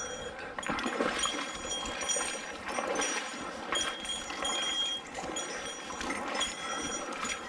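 Fly reel's click ratchet buzzing in short, repeated runs as a hooked white-spotted char takes line and dives, over river water splashing.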